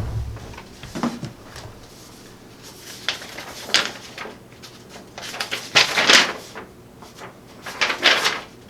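Paper rustling in a few short bursts as a folded quick-start guide is unfolded and handled, the loudest near the end.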